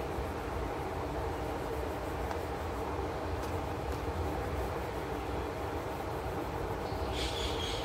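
Steady low rumbling background noise, with a short higher scratchy hiss near the end.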